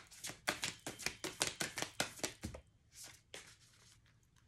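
A deck of oracle cards shuffled by hand: quick soft slaps of cards, about seven a second, giving way after about two and a half seconds to a few scattered taps.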